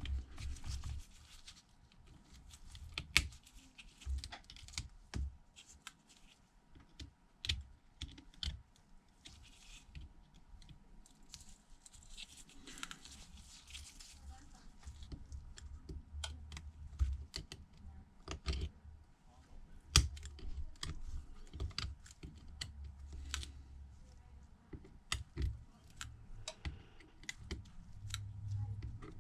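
Small, irregular clicks and taps of precision tools working on the phone: a screwdriver and tweezers picking the last midframe screws out of a Samsung Galaxy Note 9.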